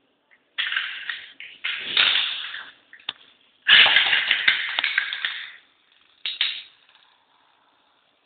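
Beyblade spinning tops clattering and scraping on hard plastic in four sudden bursts, each fading out, with a single sharp click near the middle; the longest and loudest burst comes a little after the middle. This is the sound of the repaired tops being test-spun.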